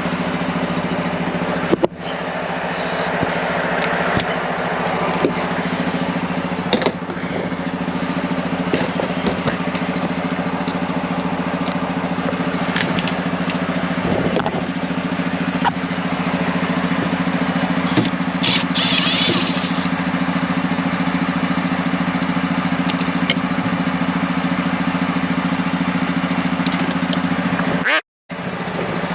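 A machine engine running at a steady drone, with scattered light clicks and a short hiss about two-thirds of the way through; the sound cuts out for a moment near the end.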